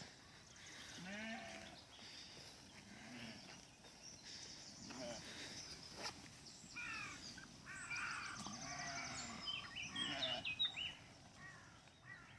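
Flock of sheep bleating, many separate calls one after another, some deep and some higher-pitched, coming thickest in the second half.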